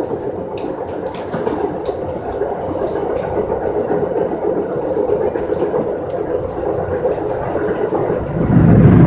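Metra bilevel commuter car rolling at speed, a steady rumble of wheels on rail with faint ticks. About eight seconds in a louder, deeper rumble comes in.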